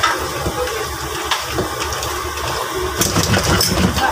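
Steady roar of a gas wok burner under a wok of chili crab, with a wooden spoon scraping and stirring in the pan and a burst of clattering about three seconds in.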